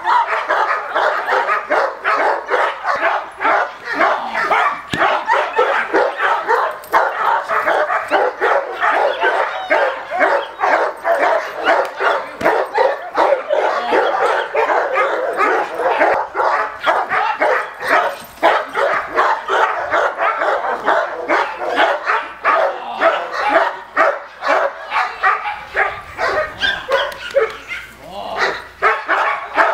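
A dog barking rapidly and continuously, several barks a second with hardly a pause, as in bite or attack training.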